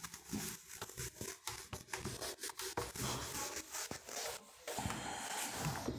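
Whiteboard eraser being rubbed back and forth across a whiteboard, wiping it clean in uneven strokes, with a brief break about four and a half seconds in.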